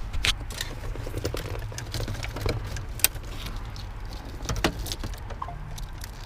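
Sharp plastic clicks and light rattling of wiring connectors being plugged back into a car's ignition switch, over a steady low rumble.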